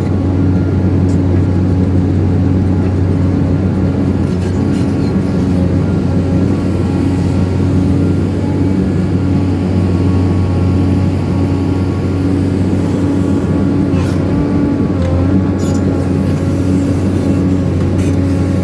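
Excavator diesel engine running steadily, a constant low drone that holds the same level throughout.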